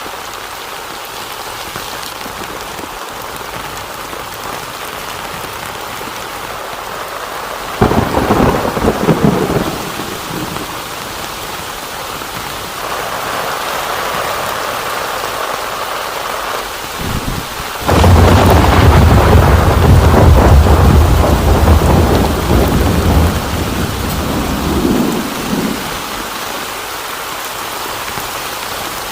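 Heavy rain falling steadily, with thunder: a sharp clap about eight seconds in, and later a long, loud rumble lasting several seconds.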